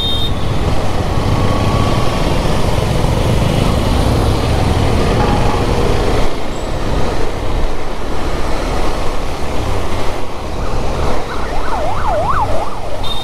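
Steady engine and road noise of a motorcycle riding in heavy city traffic. Near the end a siren wails rapidly up and down for a couple of seconds.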